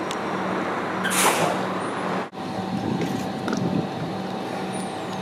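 A Stadtbahn light-rail car passes close by with steady running noise and a low hum, and a brief loud hiss comes about a second in. After a cut about two seconds in, trams stand at a platform with a steady whine over the running noise.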